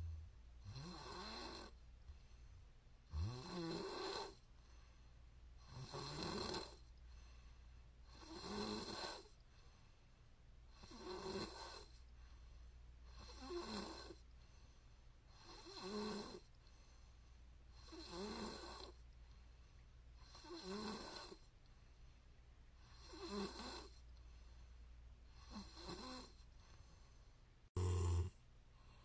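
A woman snoring steadily in her sleep, one snore about every two and a half seconds.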